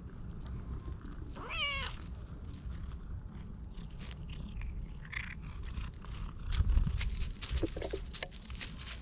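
Cat meowing: one short, wavering meow about a second and a half in, and a fainter short mew near the end. Dry leaves rustle and crackle under its paws.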